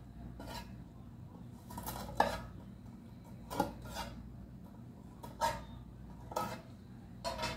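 Metal pan and utensils clinking and knocking: about half a dozen separate clatters, a second or two apart, each with a short ring.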